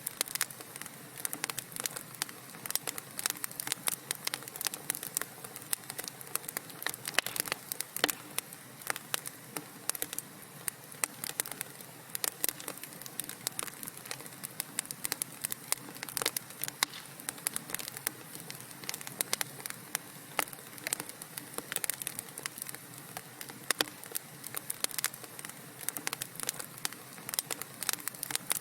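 Wood fire burning in a fireplace, with dense, irregular crackles and pops over a soft steady hiss.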